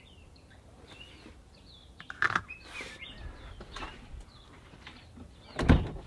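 Small birds chirping now and then, with a few knocks and rustles of handling about two seconds in and one loud thump near the end.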